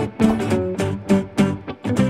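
Background music: a strummed guitar playing quick, evenly spaced strokes.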